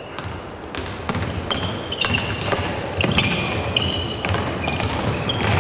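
Basketball dribbled on a hardwood gym floor, bouncing repeatedly, with many short high-pitched sneaker squeaks as players cut and change direction.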